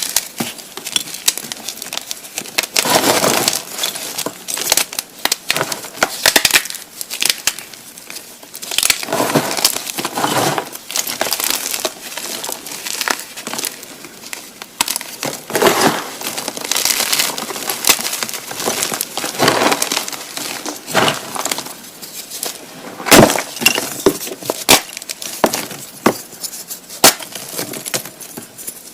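Blocks of gymnastic chalk being crushed by hand, crumbling with repeated gritty crunches and sharp cracks in uneven bursts.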